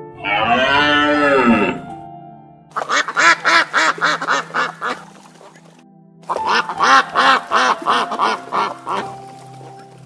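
An animal calling: one drawn-out call that rises and falls, then two quick runs of short calls, over background music.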